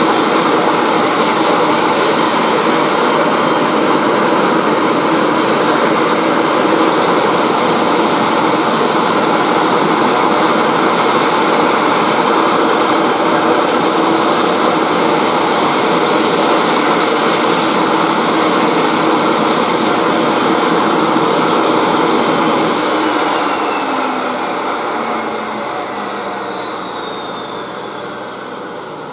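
Bombardier Q300 (Dash 8-300) turboprop taxiing close by: a steady loud rush of propeller and engine noise with a high turbine whine over it. From its twin Pratt & Whitney Canada PW123-series engines. In the last several seconds the sound fades and the whine falls in pitch.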